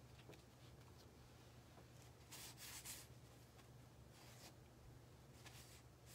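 Near silence over a steady low hum, with a few faint brushing, rubbing sounds from hands handling a cloth on a tabletop, about two seconds in and again around four seconds.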